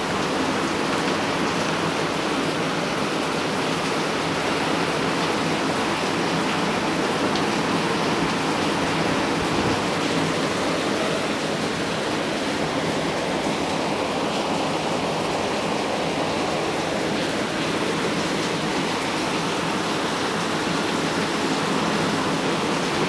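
Very heavy rain falling on corrugated roofs, with runoff pouring off the roof edges: a steady, even hiss that holds at one level throughout.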